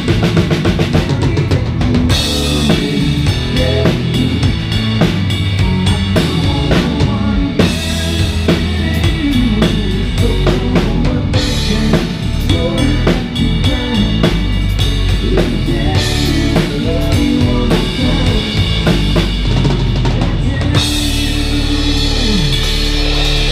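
Live band playing with the drum kit loudest, driving a steady beat of kick, snare and cymbals under electric guitar and bass, heard from on stage. Near the end the texture changes as held guitar notes come in.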